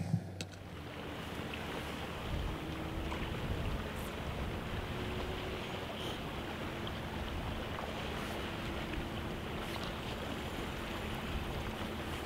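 Steady wash of sea and wind with a faint low hum underneath.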